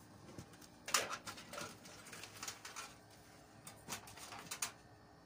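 Power supply cables being handled and arranged inside a desktop computer case: a scattering of light clicks and rustles of plastic-sheathed wires against the case.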